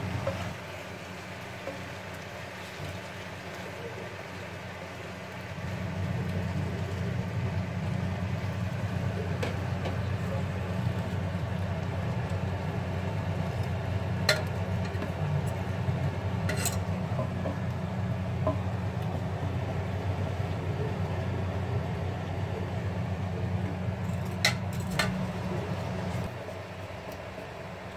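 A steady low rumble from the kitchen, louder through the middle, under stirring in a wok and a steel pot, with a few sharp clicks of the spatula and whisk against the pans.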